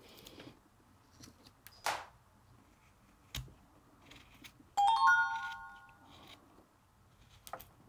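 Faint short scrapes and clicks of a carving knife paring wood. About five seconds in, a short bell-like chime of several tones rings out and fades within about a second; it is the loudest sound.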